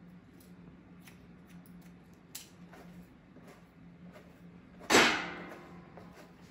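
Faint, scattered snips of hair-cutting shears working through wet hair. A loud sharp knock about five seconds in rings briefly and fades.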